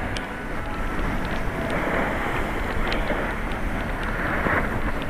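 Wind rushing over the microphone of a camera moving downhill, with the hiss of skis sliding over packed snow that swells every second or so.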